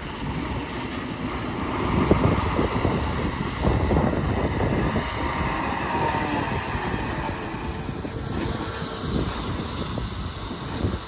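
Heavy earthmoving equipment running steadily: the diesel engine of a bulldozer or dump truck at work moving dirt.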